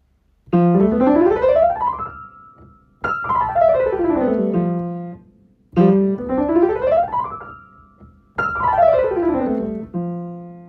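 Piano sound effect: four quick sweeping runs, rising, falling, rising again and falling again, each ending on a held note, with a low held chord near the end.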